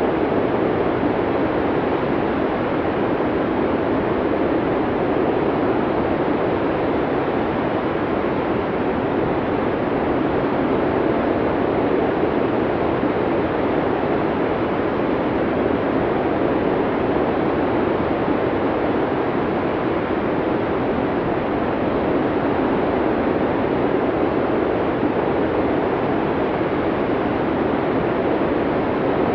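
Snowstorm wind blowing as a constant, even rush of noise, deepest in the low middle, with no gusts, breaks or other events.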